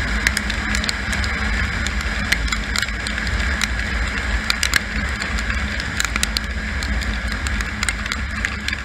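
Kawasaki KLR650's single-cylinder engine running at road speed under a steady rush of wind, with scattered sharp ticks of raindrops striking the camera.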